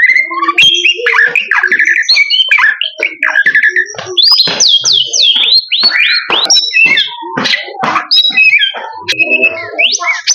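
Male white-rumped shama (murai batu) in full, continuous song: a fast, unbroken run of varied clear whistles, rising and falling glides, rapid trills and chirps.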